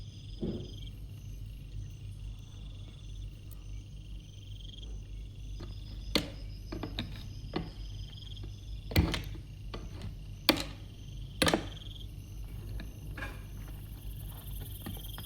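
A few sharp knocks and taps over a steady low hum, the four loudest spaced a second or two apart in the second half.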